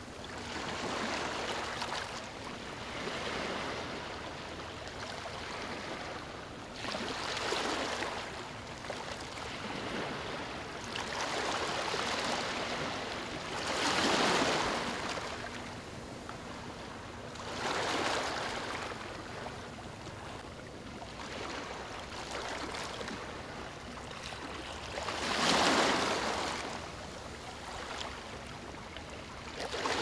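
Small ocean waves breaking and washing up the shore, each surge swelling and fading a few seconds apart over a steady hiss of surf.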